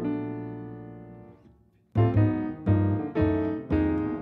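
Piano music: a held chord fades away, then after a short pause four chords are struck about half a second apart.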